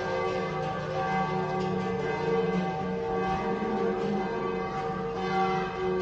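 Cowbells on a herd of cattle ringing continuously as the cows walk, many bells at different pitches overlapping in a steady, unbroken jangle.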